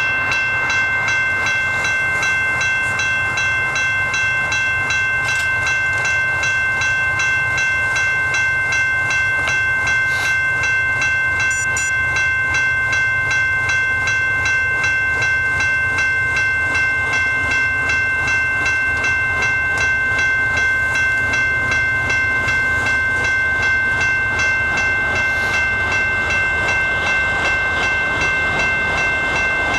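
Railroad crossing warning bell ringing in a fast, steady rhythm, over a low rumble.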